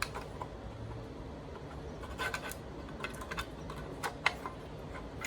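Light clicks and scrapes of a Lurton S-103 smoke alarm's plastic housing being worked open after its corner screws are out, with a few sharper clicks between about two and four seconds in.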